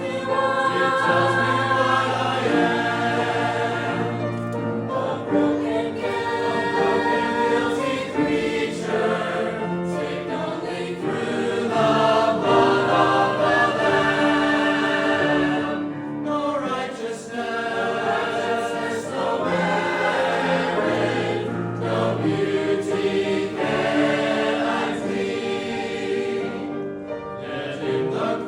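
Church choir singing a gospel hymn, sustained held chords with a few brief breaths between phrases.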